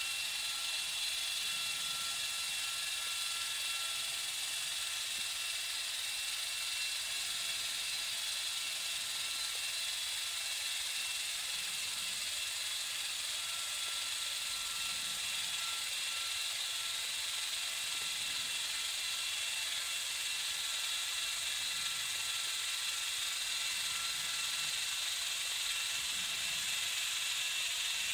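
A sailboat's engine and propeller heard underwater through a hydrophone: a steady mechanical rushing noise with several high tones held steady through it, no deep rumble and no change in level.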